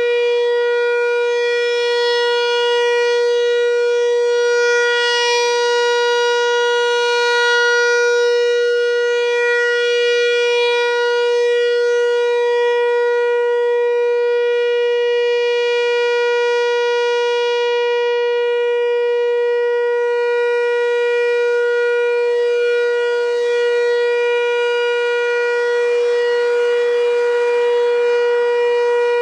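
Whelen WPS-4004 electronic outdoor warning siren sounding its Alert signal: one steady tone with strong overtones, holding the same pitch with only a slight waver in loudness.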